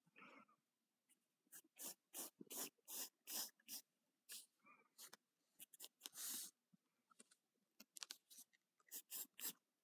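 Faint scratching of a wooden pencil's graphite drawing on sketchbook paper: quick short strokes at about three a second, with one longer stroke about six seconds in.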